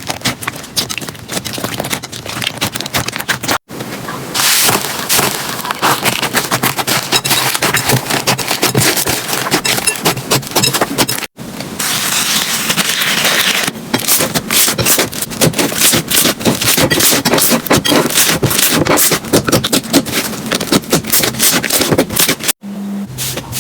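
Slime being squeezed and worked by hand, with dense crackling, popping and scraping, in several short clips that cut abruptly three times.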